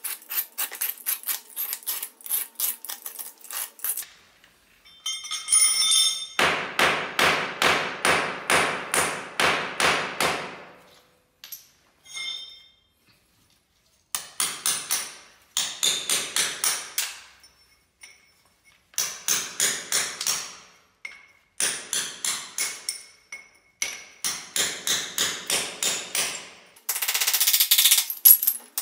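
A utility knife scrapes out tile grout in quick strokes. Then a hammer drives a chisel into a floor tile in fast, even runs of blows with short pauses between, breaking the tile up. Near the end there is a noisier stretch of scraping.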